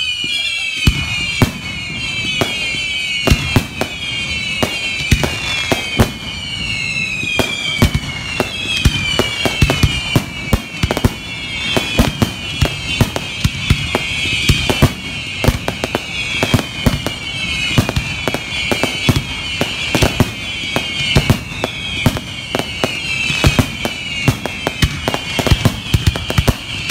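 Fireworks display: a dense barrage of sharp bangs and crackling bursts, overlaid by a continuous series of overlapping whistles that each fall in pitch.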